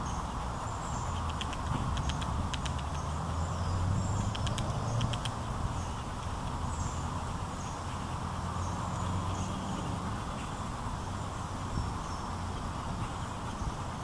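High, thin chirping calls repeated all through, from a downy woodpecker fledgling begging while it is fed. A few short runs of quick sharp clicks come about two seconds in and about five seconds in, over a steady low rumble.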